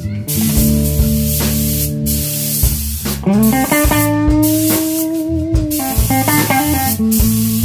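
Background guitar music, with one note bent upward and held through the middle, laid over the hiss of a compressed-air spray gun misting a thin coat of sanding sealer. The hiss cuts out briefly a few times as the trigger is released.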